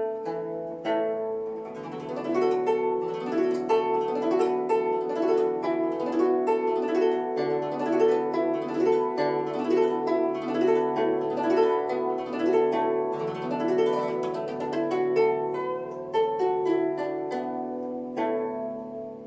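Guzheng (Chinese plucked zither) playing solo: quick runs of plucked notes over ringing lower strings, thinning out and softening near the end.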